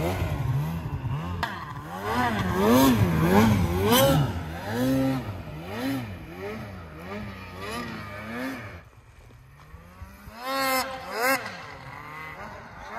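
Polaris Khaos snowmobile's two-stroke engine revving up and down over and over as the sled ploughs away through deep powder, fading with distance. Near the end come two more rising revs.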